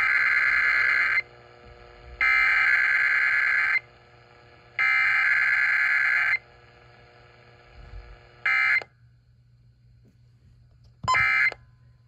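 Emergency Alert System header data played over AM radio: three harsh, buzzing digital data bursts, each about a second and a half long and about a second apart. Two short tone bursts follow a few seconds later.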